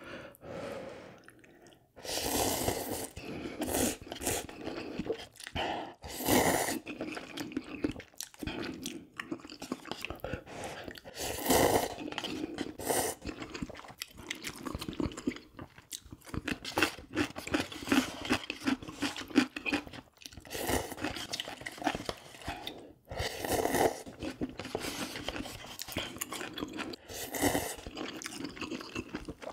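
Close-miked eating of spicy instant ramen noodles: continuous chewing and slurping, with several louder slurps spread through.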